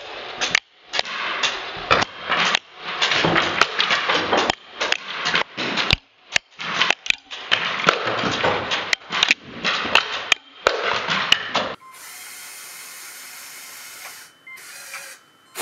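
Small LEGO electric motor driving the ratcheting firing mechanism of a brick-built rocket launcher, whirring and clattering in repeated bursts with sharp clicks as darts are shot off one after another. About twelve seconds in this gives way to a quieter, steady noise.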